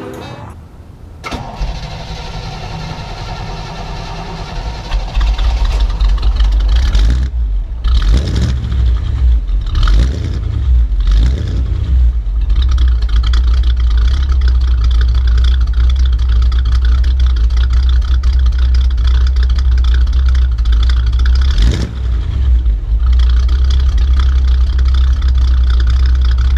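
1956 Chevrolet Bel Air engine starting, then revved several times and held at a steady run, heard close at the tailpipe through its dual exhaust with the stock mufflers still fitted.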